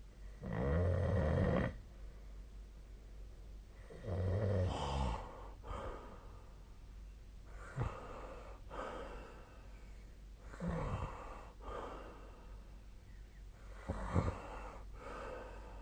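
A sleeping person snoring: two loud snores within the first five seconds, then softer breaths and weaker snores every couple of seconds.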